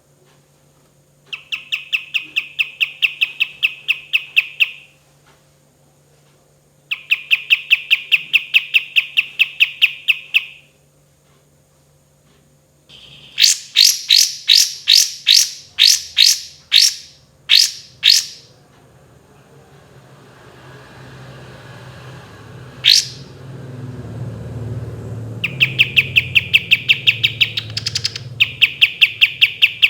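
Kapas tembak bird singing: long, fast, rattling trills of evenly spaced notes lasting about three to four seconds each, broken by a louder run of separate sweeping notes about halfway through and a single sharp upward whistle later on. A low rumble rises behind the song in the second half.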